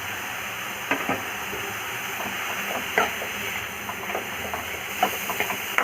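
Chopped mixed vegetables (onion, cauliflower, carrot, beans, cabbage, curry leaves, coriander, mint) sizzling steadily in oil in a kadai while being stirred, with occasional short scrapes and clicks of the stirring utensil against the pan.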